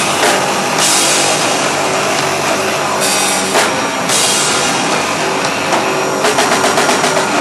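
Live rock band playing loud, with guitar and drum kit and crashing cymbals. A quick run of drum hits comes near the end.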